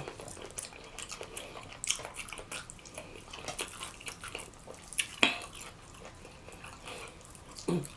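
Close-up wet chewing and lip-smacking from sloppy eating with the fingers, a steady run of small clicks and slurps, with one sharper smack about five seconds in.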